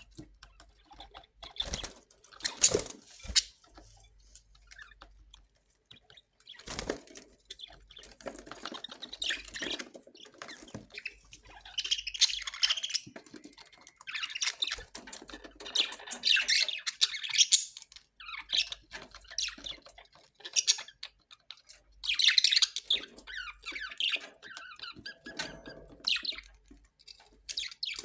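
Australian parrots squawking and chattering in short, harsh, irregular calls, with a few sharp knocks about two to three seconds in and again near seven seconds.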